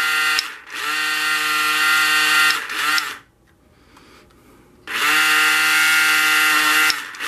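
Slot car's small electric motor run at full throttle while held down by hand on the track, giving a loud, steady high whine. It cuts briefly just under a second in, stops for about two seconds in the middle, then runs again.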